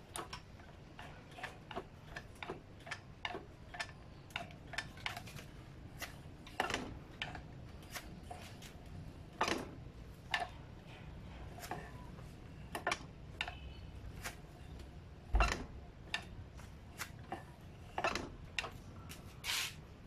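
Scattered light clicks and knocks at an irregular pace, with one louder, deeper knock about fifteen seconds in: hand work with tools and parts on an e-bike's front fork assembly.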